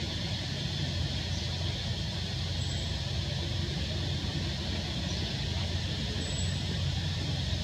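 Steady low rumble with an even hiss above it, unchanging throughout, with a few faint short high chirps.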